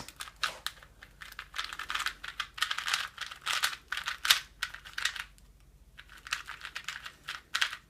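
Angstrom Valk M magnetic 3x3 speedcube being turned by hand for its first turns out of the box: quick runs of small plastic clicks and clacks, with a brief pause about two-thirds of the way through.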